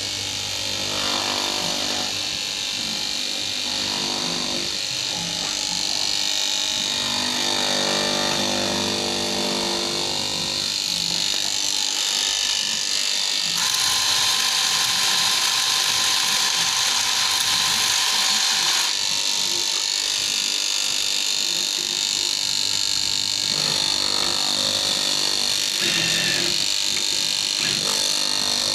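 Electric fabric-cutting machine running steadily while cutting canvas. Its pitch and tone shift between about 13 and 19 seconds in, with a slight rise in loudness, then it settles back.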